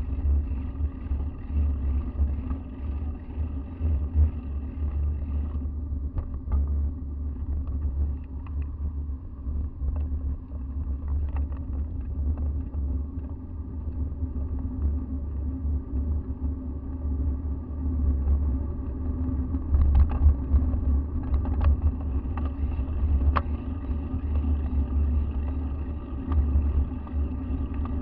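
Steady low rumble of wind and ride vibration on a bicycle's handlebar-mounted action camera riding a paved cycle path. A few sharp knocks come about two-thirds of the way through.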